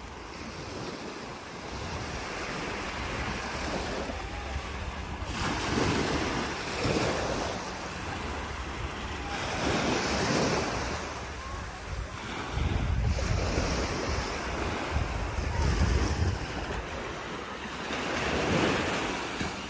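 Sea waves breaking and washing in, swelling several times at intervals of a few seconds, with wind buffeting the microphone as a low rumble, strongest after the middle.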